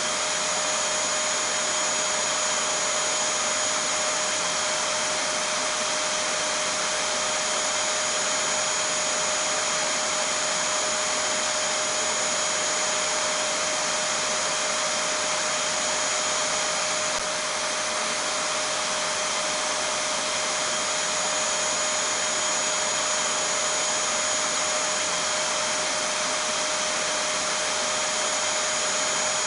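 Vacuum cleaner (hoover) motor running steadily: an even rushing hiss with a constant whine over it, used as sleep noise for a baby.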